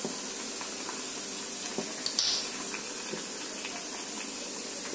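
Chopped cabbage and vegetables sizzling gently in oil in a frying pan on a low gas flame, a steady soft hiss, with a few light clicks about two seconds in.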